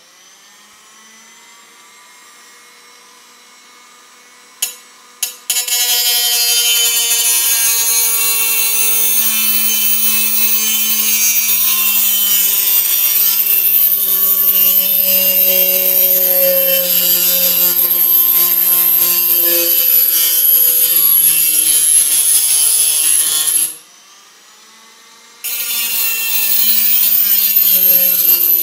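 Black+Decker RT18KA electric rotary tool spinning up with a rising whine and running free, then, after two short clicks about five seconds in, its small cutting disc grinding against a steel tin can: a loud grinding hiss over the motor's whine, the pitch sagging a little under load. Near the end the disc is lifted off for a moment, the tool running free, then it bites again. The disc barely cuts the can, mostly just scratching the metal.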